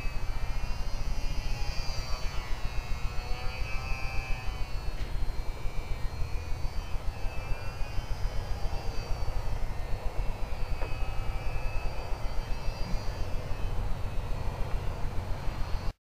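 Faint whine of a Parkzone ultra-micro P-51 Mustang's small electric motor and propeller, wavering up and down in pitch as the plane flies overhead. Heavy wind rumble on the microphone lies under it.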